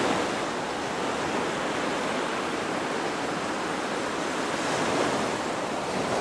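Steady rushing noise like ocean surf, with a slight swell about five seconds in.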